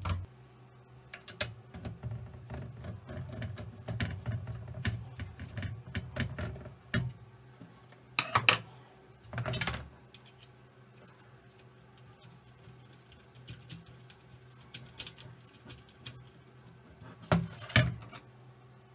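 Hands handling an opened LCD monitor's sheet-metal chassis and its cables on a wooden bench: scattered clicks, rustles and light knocks, with louder knocks about eight to ten seconds in and again near the end.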